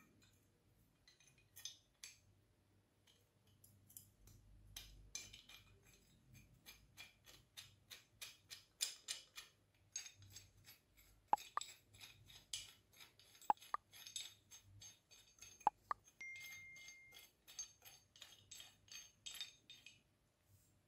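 Small metal clicks as a pipe wrench's hook jaw is run into its frame by turning the knurled adjusting nut, a quick steady run of ticks, with a few sharp metallic clinks around the middle.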